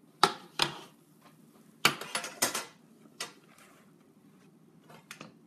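A metal baking tray and tongs clanking and clinking as a tray of meatballs is handled from the oven: a few sharp knocks, with a quick cluster about two seconds in.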